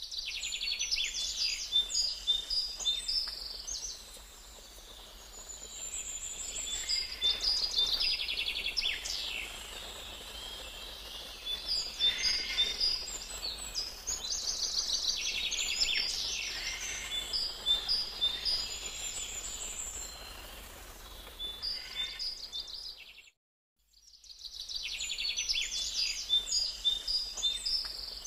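Small birds chirping and trilling in quick repeated notes, several calls overlapping and coming in waves. The sound cuts out completely for under a second about three-quarters of the way through.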